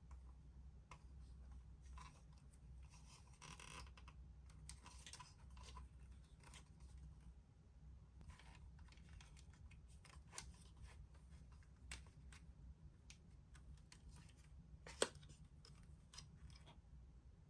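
Faint handling noises of toys and packaging: scattered light clicks and short rustles over a low room hum, with one sharper click about fifteen seconds in.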